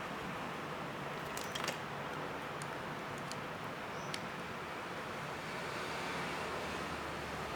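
Steady background hiss with a few light clicks, a small cluster about a second and a half in and one more about four seconds in.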